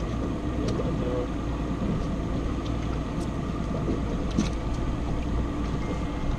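Boat motor idling with a steady low rumble, a few light clicks and knocks over it.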